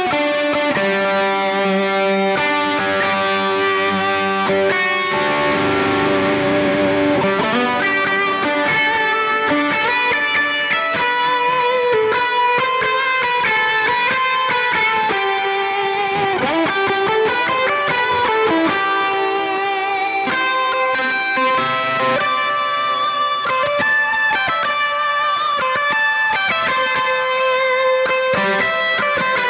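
Ibanez electric guitar played through a Line 6 POD X3 Live multi-effects unit on a lead-solo patch, with heavy distortion and delay for a big ambient sound. It plays sustained, singing lead notes, with a few bent notes around the middle.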